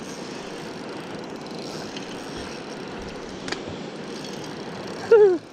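Spinning reel being cranked steadily to bring in a hooked small rainbow trout, a continuous whirring, with a single sharp click about three and a half seconds in. Near the end comes a short exclamation that falls in pitch.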